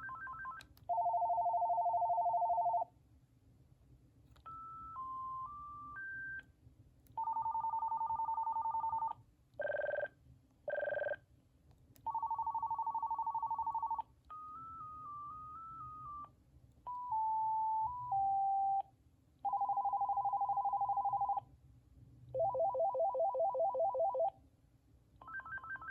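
AT&T (VTech) E2801 cordless phone handset previewing its ringtones one after another: electronic trilling rings and short beeped melodies, each about two seconds long, separated by brief pauses. Near the end comes a fast warbling trill.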